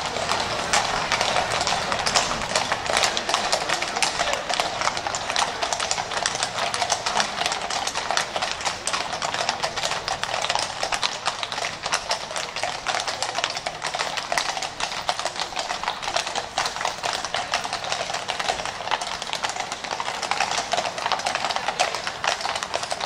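Hooves of several horses clip-clopping steadily, many steps overlapping, as a horse-drawn coach and its escort arrive.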